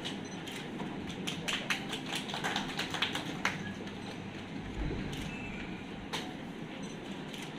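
Irregular sharp clicks and taps, a quick run of them in the first few seconds and one more later, over steady room noise.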